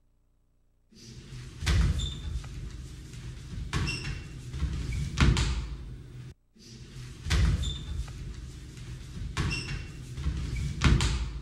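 Wrestlers grappling on a mat: wrestling shoes squeak sharply against the mat and bodies thud down onto it a few times. The same short sequence of squeaks and thuds plays twice, with a brief break in the middle.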